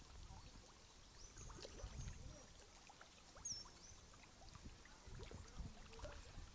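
Faint river water lapping and trickling at the surface, with small irregular splashes and a few brief high chirps.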